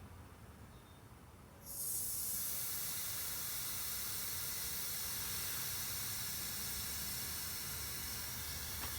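Air hissing out of a tubeless car tire as it is deflated after a screw-and-glue plug repair. A faint hiss at first, then a steady, loud hiss that starts suddenly about two seconds in.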